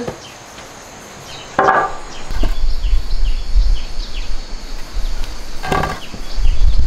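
Hardwood planks knocking as they are handled, twice, about two seconds in and near the end. A loud low rumble runs under them from about two seconds in, with insects chirping over it.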